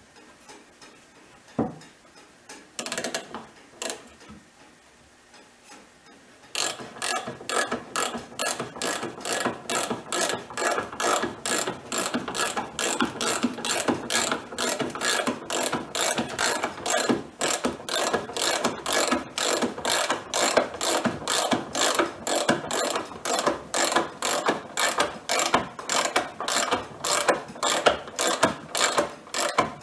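Socket ratchet wrench clicking as it drives a lag screw into a cedar log joint. A few scattered knocks at first, then steady, evenly spaced clicking from about six seconds in.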